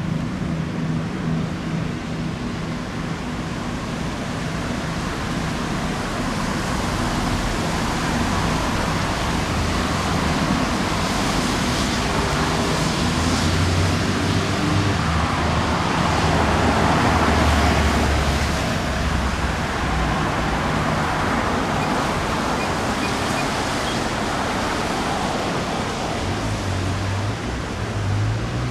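Boat engines running as police and fire rescue launches move off on the river, a low hum under a steady rushing noise of wash and wind. The rushing builds to a peak about two-thirds of the way through. No siren is heard.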